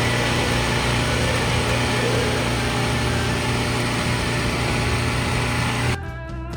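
Steady engine-like mechanical running with a constant low hum, cut off abruptly about six seconds in by strummed guitar music.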